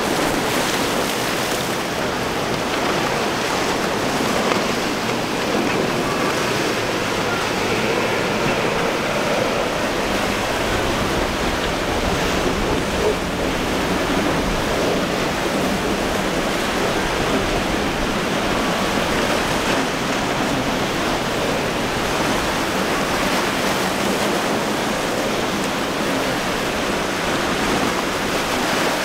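Steady wash of breaking surf and churning water, with wind buffeting the microphone.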